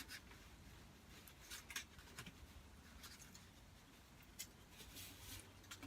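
Near silence with a few faint, scattered clicks and scrapes of eating: cutlery and food being handled at a lunch of chicken on the bone.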